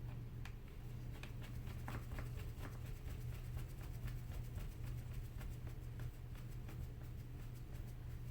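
Screwdriver tightening the screws on the underside of a Lenovo T470 laptop: faint, irregular clicks, a few a second, over a steady low hum.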